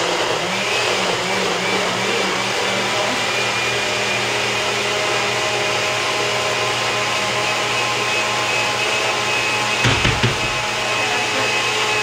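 Countertop blender running steadily, puréeing a salsa of roasted tomatillos, chilies, garlic and cilantro. About ten seconds in there is a brief low bumping.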